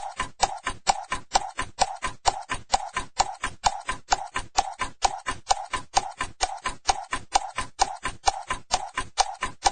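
A fast, perfectly even ticking beat: sharp clicks about four to five a second, each carrying a short mid-pitched tone, repeating unchanged like a clock-tick rhythm track.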